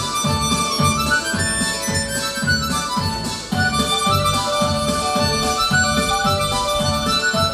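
Instrumental music: a melody over a steady, bouncing bass beat of about two and a half beats a second.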